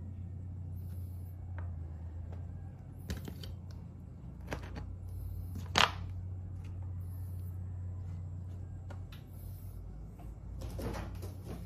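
Steady low hum with scattered small clicks and knocks, the sharpest single click about six seconds in. Near the end there is a brief rustle of movement close by.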